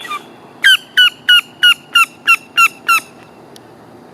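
Northern mockingbird singing one falling note eight times in quick succession, about three a second, in an attempt to copy a sound it has just heard.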